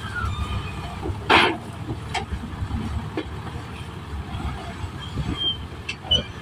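Forklift cane loader's engine running steadily as its raised bin tips sugarcane into a truck. There is one loud clank about a second in and a few lighter knocks later.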